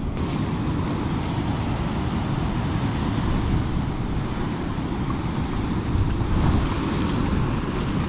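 Steady low rushing noise of a river waterfall, with wind on the microphone.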